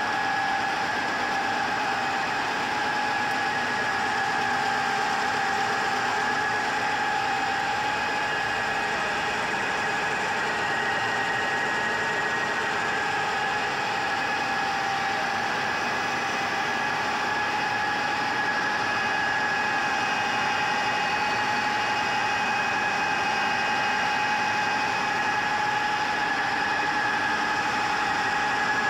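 GIDUE MASTER Combat flexographic label press running at speed: a steady mechanical hum with a constant whine over it, unchanging throughout.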